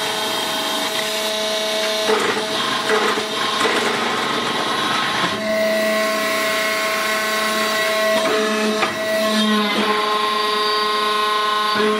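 Hydraulic brick-making press running: a steady motor and pump whine that changes tone about five seconds in, with scraping and knocking from the mould and bricks between about two and four seconds.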